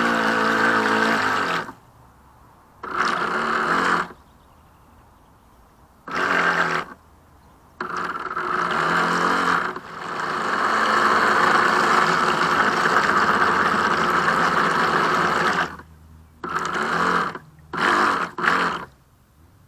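Reely Wavebreaker RC speedboat's electric motor and hull running in throttle bursts: several short bursts and one long run of about eight seconds in the middle, each starting and cutting off sharply.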